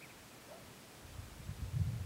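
Wind buffeting the microphone outdoors. Faint hiss at first, then irregular low rumbles from about a second in that grow louder.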